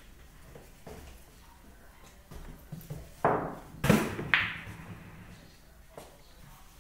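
Three loud knocks and clacks on a pool table in quick succession, each with a short ring, a little over three seconds in, while a German Shepherd puppy moves about on the table among the balls. A fainter click follows about six seconds in.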